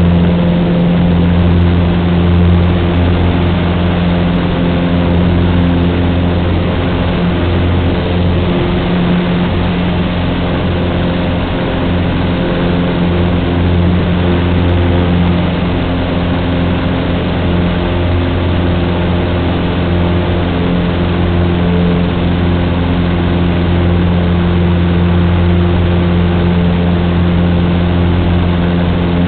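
Cessna 150's four-cylinder Continental O-200 engine and propeller running at a steady speed: a constant, unchanging drone with a strong low hum.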